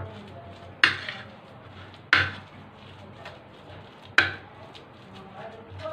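Three sharp knocks against a ceramic dinner plate, each with a short ring, as boiled chicken and potato are mashed with spices on it.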